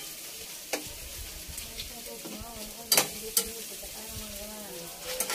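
Pork belly sizzling steadily on an electric grill, with a few sharp clicks, the loudest about three seconds in.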